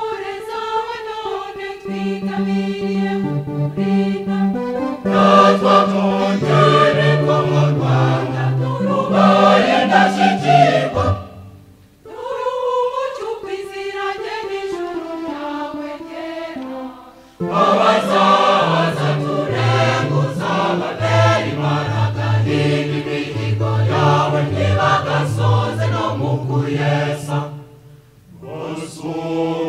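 Mixed choir of men's and women's voices singing in Kinyarwanda, with brief breaks between phrases about 11, 17 and 28 seconds in and a softer, thinner passage in the middle.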